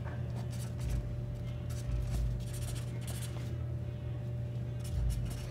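Pen scratching on paper in short irregular strokes as something is written, over a steady low hum.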